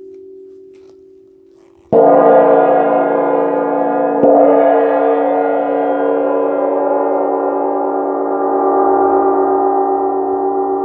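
A gong struck twice, about two and a half seconds apart, each stroke setting off a long, sustained ringing with many overtones. The ringing of an earlier stroke is fading out before the first of these strokes.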